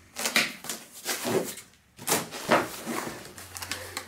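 Cardboard laptop box being laid down and its lid flipped open: a run of cardboard scrapes, rubs and knocks.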